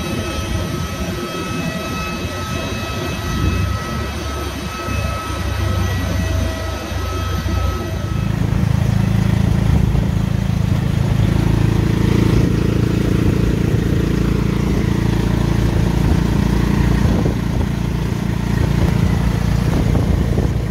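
A jet airliner's engines whining on the apron, several steady high tones over a low rumble. About eight seconds in this cuts to a motorcycle tuk-tuk's engine running as it rides in traffic, a louder, steady low rumble.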